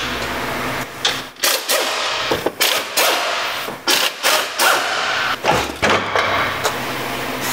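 Air impact wrench hammering in several short bursts, one after another, as it runs out the bolts holding a housing on a 700R4 automatic transmission case.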